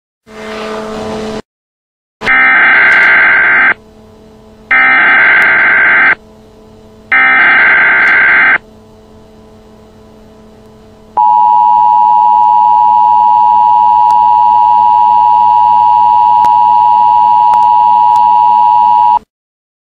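Emergency Alert System broadcast tones announcing a tornado warning: after a short blip, three identical bursts of the SAME header's buzzy digital data warble, each about a second and a half, then the steady two-tone EAS attention signal held for about eight seconds before cutting off abruptly.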